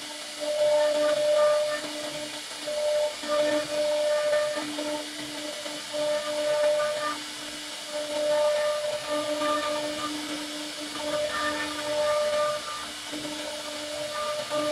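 CNC router spindle whining as its bit mills a shallow pocket into a wooden panel, over a steady hiss of cutting. The whine keeps fading in and out as the load on the cut changes.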